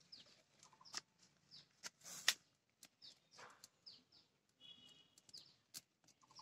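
Small birds chirping in short, high, falling notes that repeat every second or so, faint against a quiet background. A few sharp clicks sound in between, the loudest about two seconds in.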